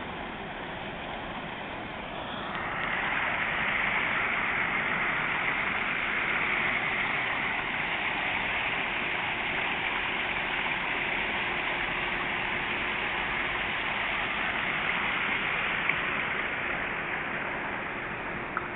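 Water falling steadily from a memorial fountain, an even rushing that grows louder about two and a half seconds in and then holds.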